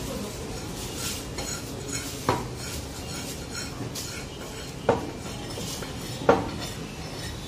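Meat cleaver chopping chicken pieces on a wooden log chopping block: three sharp strikes, each with a short metallic ring, spread a couple of seconds apart, among lighter taps and clatter of the blade.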